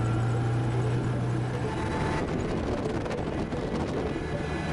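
ATV running along the trail: engine hum and tyre noise over the bridge deck and gravel. A steady low engine tone fades out about a second and a half in, leaving rough road noise with scattered small ticks.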